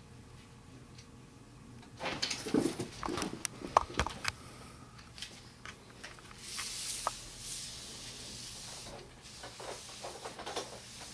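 Cats scuffling: a burst of thumps, scrabbles and rustles about two to four seconds in, as the black cat comes down off the chair onto the carpet, then softer rustling and a few light taps.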